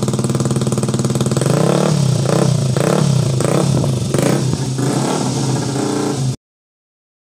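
Yamaha Jupiter Z motorcycle's four-stroke single-cylinder engine, swapped to a Vixion cylinder block with a Jupiter MX head, running on a stand: it idles steadily, then is revved in several quick throttle blips from about two seconds in before settling back. The sound cuts off suddenly near the end.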